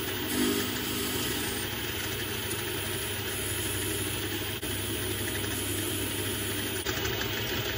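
Metal lathe running steadily, its motor and gearbox humming while the cutting tool turns a chamfer on a metal fitting held in the chuck.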